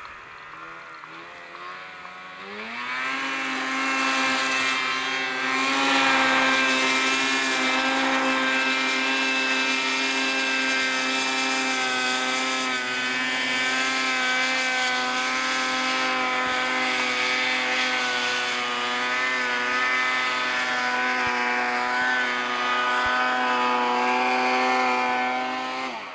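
Ski-Doo MX Z 800 snowmobile's two-stroke twin revving up about two and a half seconds in, then holding high, steady revs under load as the sled ploughs through deep powder, its pitch wavering slightly. It drops away just before the end.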